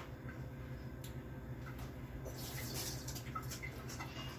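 Kitchen counter handling: a few light clicks and a short hiss about halfway through, over a steady low hum.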